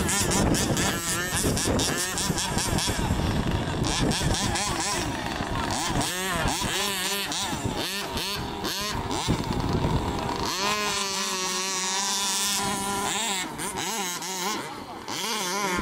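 Small two-stroke gasoline engines of HPI Baja RC buggies revving up and down again and again. About ten seconds in, one engine climbs to a high held note for nearly three seconds, then drops back.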